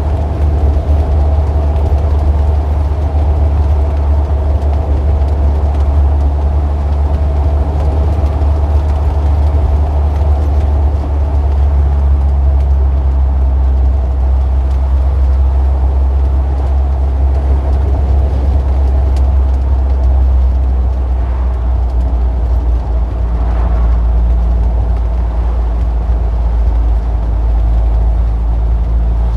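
Steady low rumble of motor-vehicle traffic and engines, with the engine tone shifting a couple of times as vehicles change.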